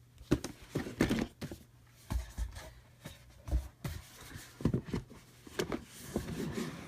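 A board-game box and its components being handled on a table: a string of irregular knocks, taps and short rustles of cardboard and plastic.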